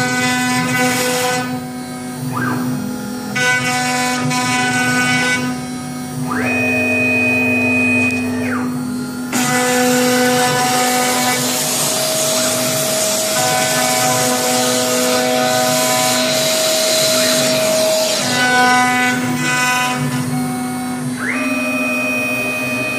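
CNC router milling a logo into a board. The spindle gives a steady whine, and the axis drive motors whine at pitches that rise, hold and fall as the head moves; twice the pitch climbs high for a fast move, then drops back.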